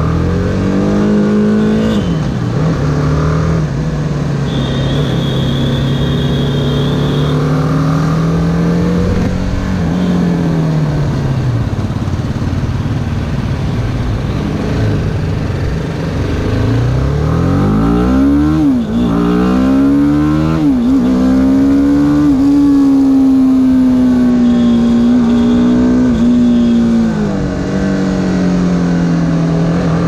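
BMW G310R's single-cylinder engine under way: pulling up through the revs with a quick dip in pitch at an upshift about two seconds in, then easing off and falling away around the middle. It then climbs hard again with two quick upshifts a couple of seconds apart, holds a steady cruise, and drops to a lower steady note near the end.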